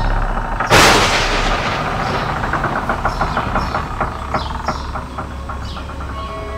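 A sudden loud blast about a second in, followed by a long run of sharp crackles that slowly thin out, with high, falling chirps repeating in the background.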